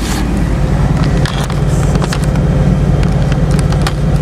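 Semi-truck's diesel engine idling steadily, heard from inside the cab as a low, even hum. Scattered light clicks and rustles from the camera being handled sit on top.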